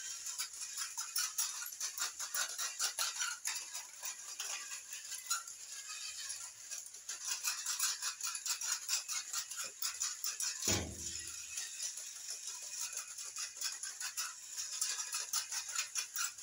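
Battery-powered walking toy horses clattering over a tile floor: a continuous rapid rattle of clicks from their small plastic gear motors and stepping legs. One low thump about two-thirds of the way through.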